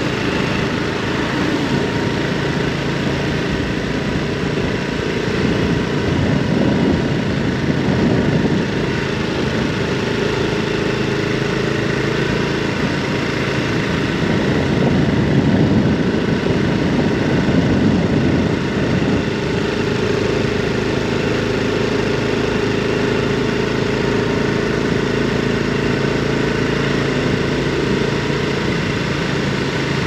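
Honda Super Cub 110 Pro's single-cylinder four-stroke engine running at a steady pace while riding, over a steady rushing noise.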